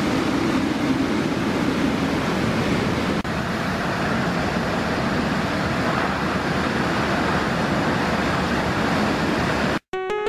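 Strong storm wind blowing steadily through trees, heard as an even roar of noise. It cuts off abruptly just before the end, where a bright electronic tune begins.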